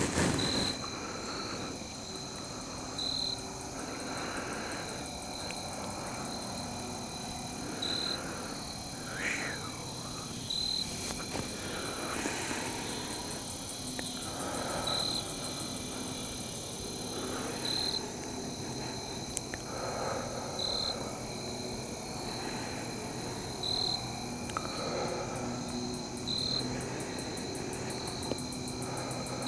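Evening insect chorus of late summer: crickets and katydids trilling steadily, with a louder short chirp every few seconds.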